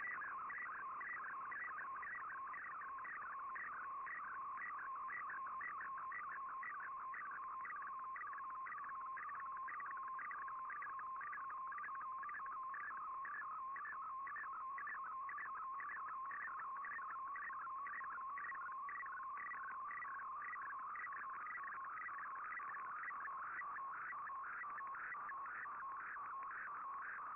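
Shortwave Radiogram's MFSK digital picture transmission, received on an Icom IC-R8600 shortwave receiver: a buzzy warbling tone that sweeps up and down over and over, several times a second, as a colour image is sent line by line.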